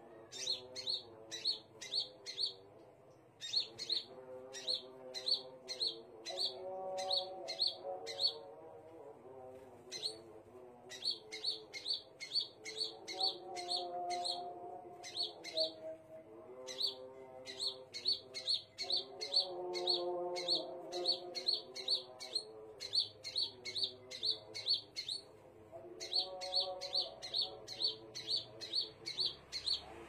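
Caged scarlet minivet calling: rapid runs of short, shrill, high chirps, about three a second, in bursts broken by brief pauses.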